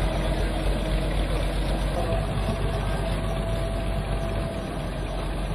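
A boat's inboard engine running steadily, a constant low hum.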